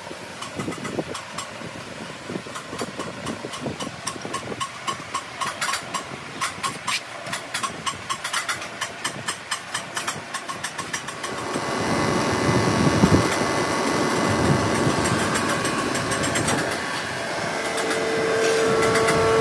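Cylinder head surfacing machine: rapid, even ticking for about the first ten seconds, then its motor starts about twelve seconds in and runs louder and steadily, with a clear steady whine joining near the end.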